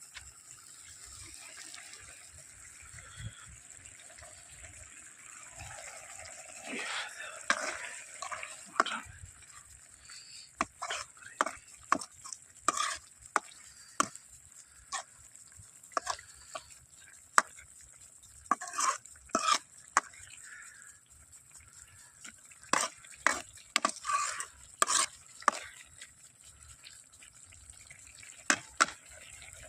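Kitchen utensils clinking and tapping against pots and dishes, with stirring. The clinks come at irregular intervals and grow frequent after the first several seconds.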